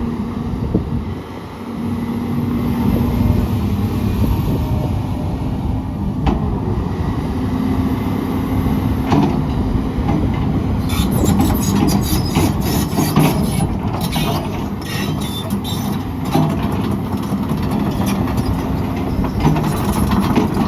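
Cummins diesel engine of an XCMG XE210CU track excavator running under hydraulic load while digging, its pitch holding steady as the load shifts. From about halfway through, a dense run of knocks and clatter joins it as the bucket works rock and debris.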